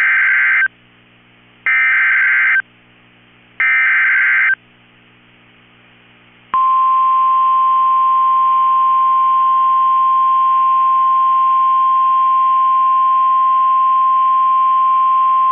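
NOAA Weather Radio Emergency Alert System activation: three short bursts of screeching SAME digital header data, each about a second long and a second apart, then after a two-second pause the warning alarm, one steady high tone held for about nine seconds. It heralds a severe thunderstorm warning.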